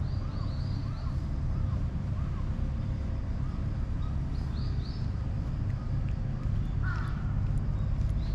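Birds calling in park trees: short arched notes in quick groups and spaced repeats, with one louder call about seven seconds in, over a steady low rumble.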